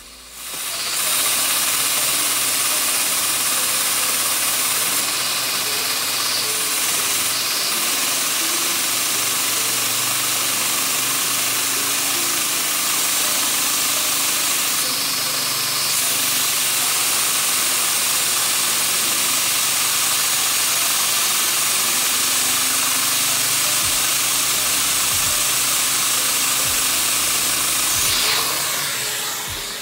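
A vacuum cleaner runs with a steady loud hiss, drawing air through a small Lego vacuum engine to drive its piston and flywheel. The hiss starts about a second in and dies away near the end.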